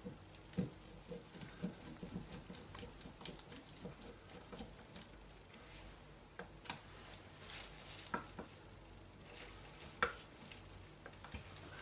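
Faint, scattered light clicks and rustles of the metal parts of a hand drill being handled and fitted together by gloved hands, with paper sheets rustling under them.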